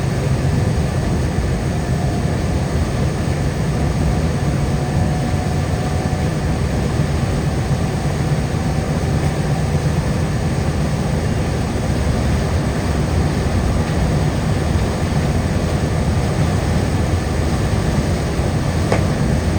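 Car driving along a wet highway: steady low road and tyre noise.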